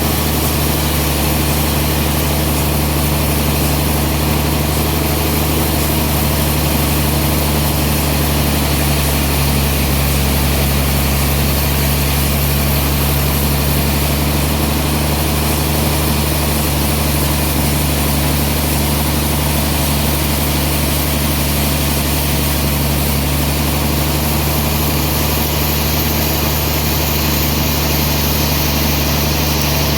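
Sawmill machinery running steadily with a constant low hum.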